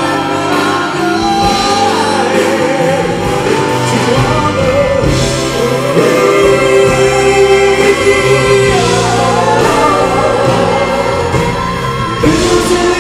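A symphony orchestra playing with a group of singers, voices and instruments sustaining and sliding between long notes.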